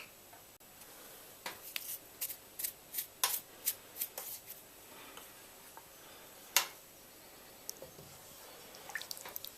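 Dry crackling and rustling as dried mixed herbs are handled and added by hand to the stew pot: short, crisp, irregular crackles, thickest in the first half, with one sharper one past the middle and a few more near the end.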